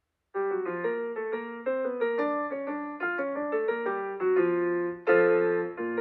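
Piano music begins abruptly about a third of a second in: a slow melody of held notes over chords, changing about every half second, with a louder chord about five seconds in.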